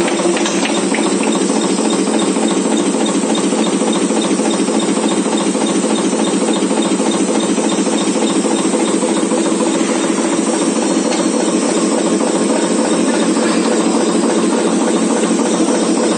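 Board-chopping machine running steadily: an even, continuous mechanical hiss with a steady hum beneath it.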